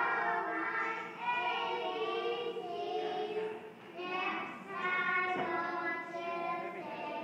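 Young children singing a song together into toy microphones, in sung phrases with short breaks about a second in and about four seconds in.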